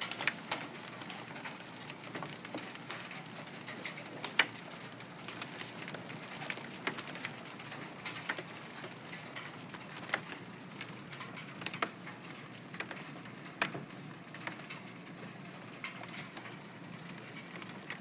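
Hailstorm: a steady hiss of heavy rain with irregular sharp cracks of hailstones striking hard surfaces, one or two loud hits every second or so.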